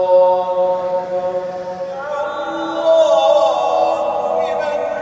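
A man chanting an Islamic prayer recitation in long held notes through the mosque's microphones. About two seconds in the chant moves to a higher pitch and turns through wavering, ornamented runs.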